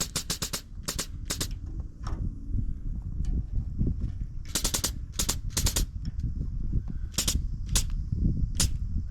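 Grease gun worked in short runs of sharp clacking strokes, with pauses between the runs, over a steady low rumble of machinery. No grease is yet showing at the nozzle.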